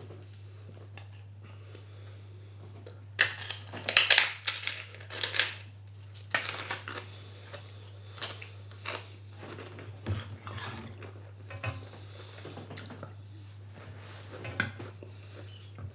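Cutlery scraping and clinking against a plate as food is gathered up, with a cluster of sharp, loud scrapes about three seconds in and lighter scattered clinks after. A steady low hum runs underneath.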